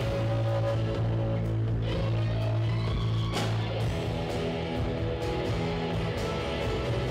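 Live rock band playing: strummed electric and acoustic guitars over bass guitar and drums, with one sharp hit about three and a half seconds in.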